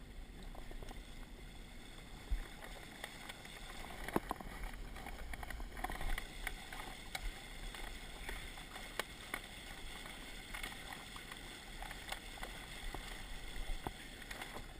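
Sailcloth rustling and crinkling as a sail is flaked back and forth, with scattered light clicks and knocks over a low steady hiss.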